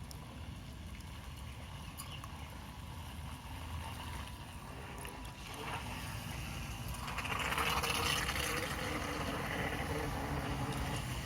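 Wind buffeting the microphone with a steady low rumble, under the noise of water from an RC sailboat outing. The noise swells about six seconds in and is loudest around eight seconds.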